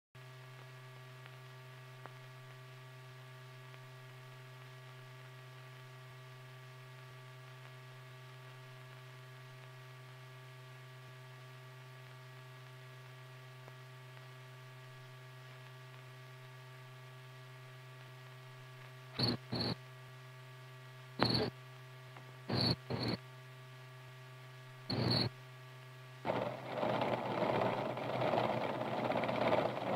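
A steady low electrical hum with overtones from an old film soundtrack. About two-thirds in come six short, sharp bursts, and near the end a dense, continuous noise of computer-room machinery begins.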